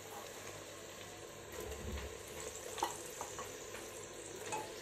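Chopped onions sizzling gently in oil in a pressure cooker, with a few soft knocks in the second half as raw mutton pieces go in.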